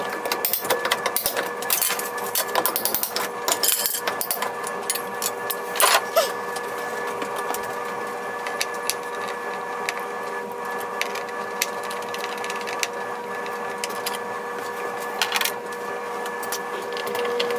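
Hammer and pry bar knocking and scraping at a wooden door casing as the trim is worked loose, with two louder cracks about six seconds in, over a steady hum.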